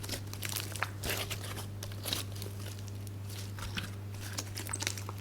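Slime being squished and worked by hand, giving off irregular little crackling pops and clicks, over a steady low hum.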